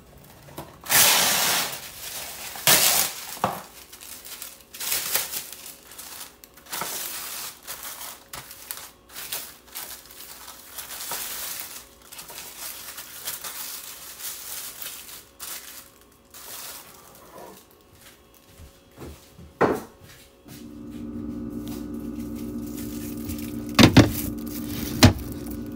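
Plastic cling wrap rustling and crinkling in a string of irregular bursts as it is pulled over a dish and pressed down around it. About twenty seconds in, a steady hum sets in as the refrigerator is opened, and near the end the dish knocks twice on a glass fridge shelf.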